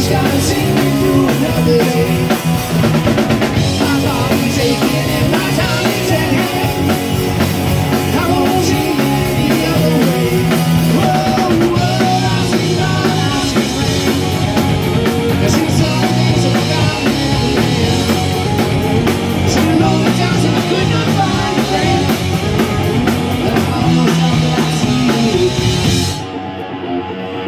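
Live rock band playing: a drum kit, electric guitars and bass under a lead vocal. About a second before the end the drums drop out and the music gets quieter.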